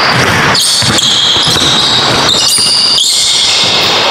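Basketball play on a hardwood gym court: the ball bouncing and players' footsteps, heard through a player's body-worn mic.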